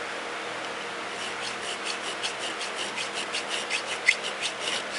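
Hand file cutting file work into a metal bolster plate held in a vise: short, quick rasping strokes, about four a second, starting about a second in, with one sharper scrape near the end.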